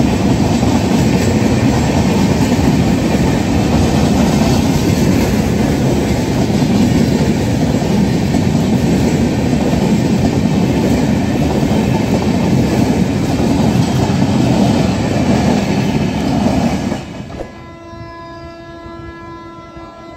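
LHB coaches of an Indian Railways express train running past at speed, a loud, dense rumble of wheels on rail. About three seconds before the end the noise drops sharply as the last coach clears, and a train horn sounds one long, steady note.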